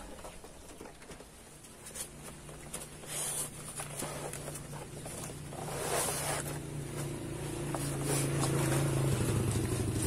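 A motor vehicle's engine running steadily, growing louder toward the end. Cardboard packaging rustles and scrapes briefly about three and six seconds in as the air rifle's box is opened.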